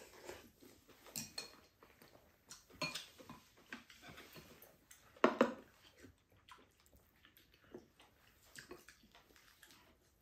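Eating sounds at a table: soup slurped from spoons, chewing, and scattered light clinks of metal spoons and chopsticks against bowls. The loudest is a slurp about five seconds in.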